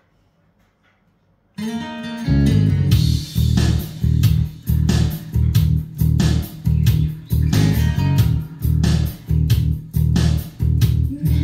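Recorded music played through a pair of B&W DM330 floorstanding loudspeakers (2½-way closed-box design). After about a second and a half of near silence between tracks, a guitar-and-bass song begins with a steady pulsing beat, about two pulses a second.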